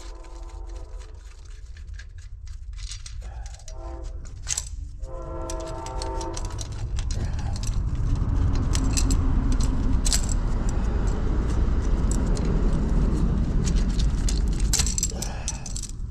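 A horn sounds in three blasts, long, short and longer, followed by a low rumble that swells and then eases off near the end. Light metallic clinks of a hand wrench on the engine's fuel lines come through at intervals.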